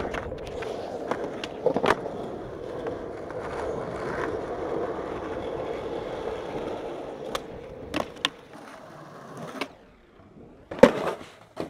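Skateboard wheels rolling on rough asphalt, a steady gritty rumble broken by several sharp clacks of the board's tail and wheels hitting the ground. Near the end, after a short quiet gap, a loud pop and slap of a board landing.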